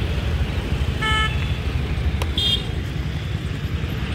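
Steady road traffic rumble with two short vehicle horn toots: a lower one about a second in and a higher, briefer one a little before the middle.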